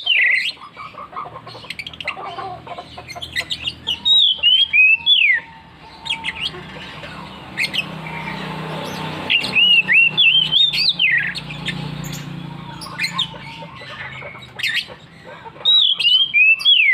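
Oriental magpie-robin (kacer) singing loudly: bouts of fast, sweeping whistled phrases repeated about four times, with quieter gaps of short sharp notes between them.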